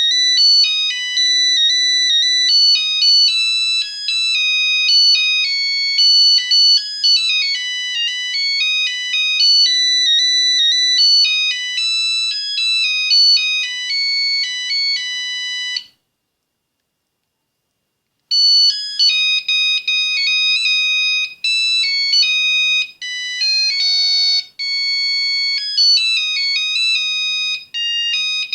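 Nokia 8110 ringtones: a fast single-line melody of bright electronic beeps plays, stops cleanly about halfway through, and after a couple of seconds of silence a second ringtone tune begins.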